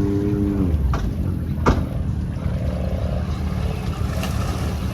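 ATV engine held at steady high revs, dropping off a little under a second in to a low rumble that runs on. A single sharp knock comes a little over a second and a half in.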